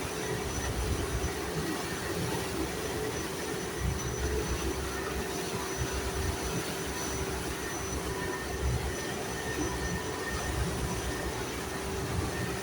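A boat's engine running steadily, with wind rumbling on the microphone.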